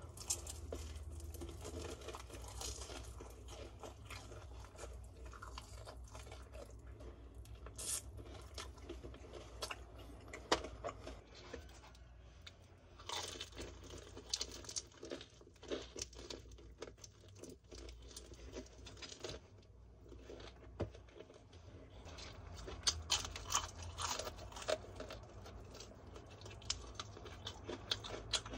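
Crunching and chewing of crispy seasoned fried chicken, with bursts of crackling bites in clusters between quieter chewing.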